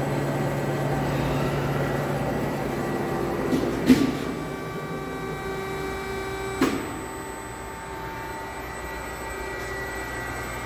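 Fellows 10-2 gear shaper running under power: a steady mechanical hum of its drives, with two sharp clunks about four and six and a half seconds in, after the first of which the hum changes pitch.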